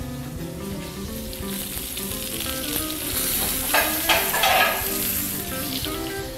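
Picanha steaks sizzling in a hot ridged cast-iron grill pan as they rest with the burner switched off. About four seconds in, the sizzle briefly flares louder as a pat of butter is pressed onto one hot steak.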